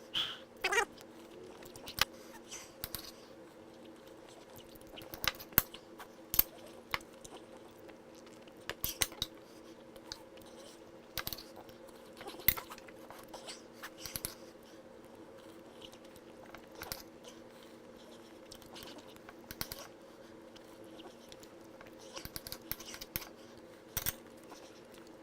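Someone eating steak: chewing, with knife and fork clicking and scraping on a plate in irregular sharp clicks, over a steady low hum.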